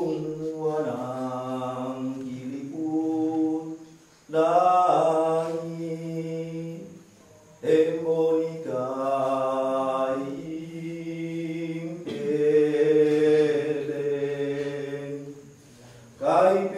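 Male voice chanting a Minahasa ritual prayer in long, held, sung phrases. The chant is sung in four phrases, with short breaths between them about four, seven and fifteen seconds in.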